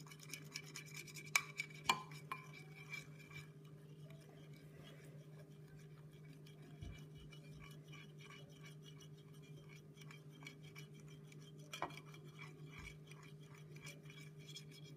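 Faint scraping and light clinks of a utensil stirring glue and food coloring in a glass dish, with a few sharper clicks about two seconds in and again near the end, over a steady low hum.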